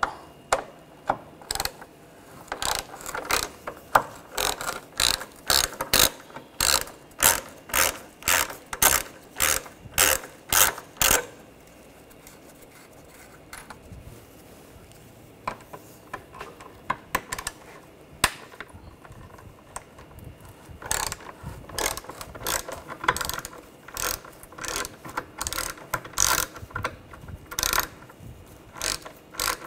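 Hand ratchet clicking as it backs T30 Torx screws out of a bumper cover's lower edge, in runs of about two strokes a second. The clicking pauses for several seconds in the middle, then starts again on the next screw.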